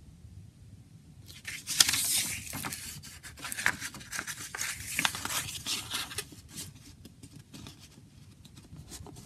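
Paper rustling and crinkling as a fold-out CD lyric booklet is handled and folded, starting about a second in, busiest for about five seconds, then thinning to a few light rustles and taps.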